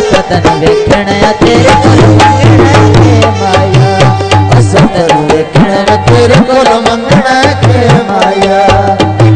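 Punjabi folk music: tabla playing a steady, driving beat under a melody line with sliding ornaments.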